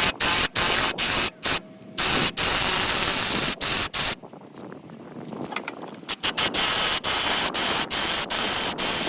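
Power ratchet with a 16mm socket running in loud, hissing stop-start bursts as it backs out an engine-mount bolt, with a quieter stretch past the middle.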